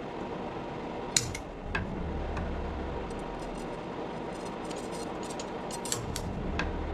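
Steady machine hum with a few sharp clicks, one about a second in and several near the end.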